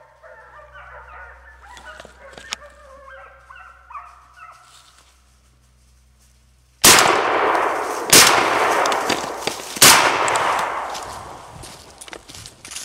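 Hunting hounds baying, then three shotgun blasts about seven, eight and ten seconds in, each with a long echoing tail.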